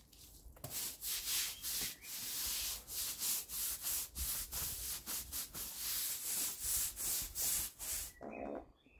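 Stiff-bristled brush scrubbing wet stone patio slabs in rapid back-and-forth strokes, about three a second. The scrubbing stops about a second before the end, and a short low buzz follows.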